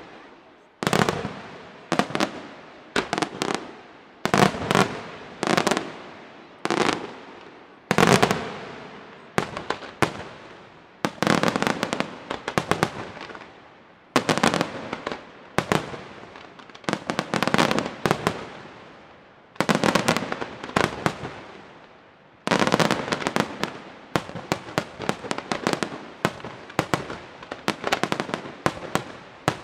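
Aerial firework shells bursting one after another, each a sharp bang that trails off, about one or two a second. From about three-quarters of the way through, the bursts come thick and fast in a dense barrage.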